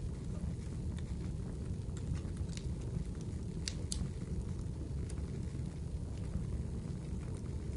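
Steady low rumbling ambience with scattered sharp crackles and pops; a few stronger pops come in quick succession near the middle.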